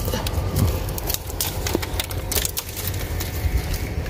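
Dry, fire-scorched bamboo twigs and leaf litter crackling and snapping in an irregular run of sharp cracks as a hand pushes through the thicket and breaks off young bamboo shoots, over a steady low rumble.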